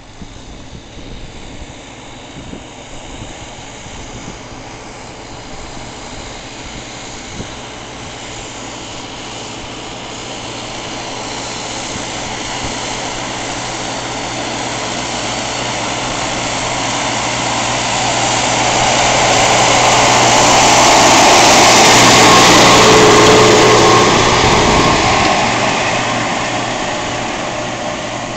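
Tractor diesel engine working under load while pulling a reversible plough, a steady hum growing louder as it approaches, loudest about three-quarters of the way through as it passes close by, then fading away.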